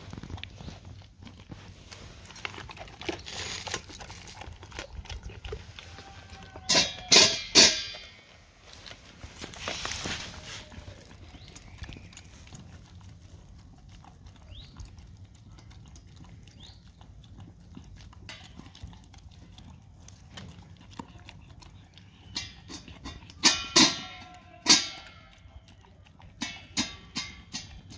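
A dog eating wet food and kibble from a stainless steel bowl: low chewing and lapping throughout, with sharp clanks of the metal bowl that ring briefly. There are three clanks about seven seconds in and a quicker run of them from about 23 seconds on.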